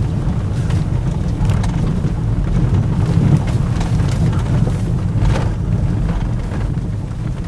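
Car driving, a steady low rumble of engine and road noise heard from inside the cabin, with a few faint knocks.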